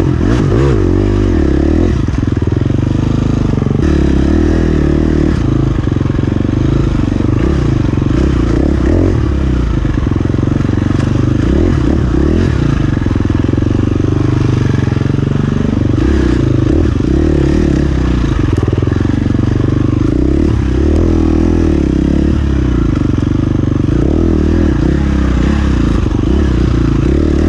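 Off-road dirt bike engine running at low to moderate revs over rocky ground, the revs rising and falling continually as the throttle is worked.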